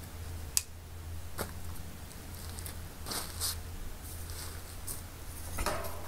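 Footsteps of rubber boots on a plastic tarp, with crinkling rustles of the tarp and a sharp click about half a second in.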